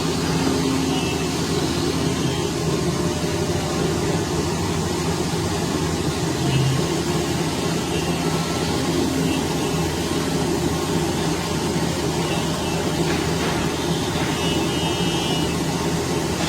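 Workshop machinery running steadily: a continuous low hum with an even hiss over it, unchanging throughout.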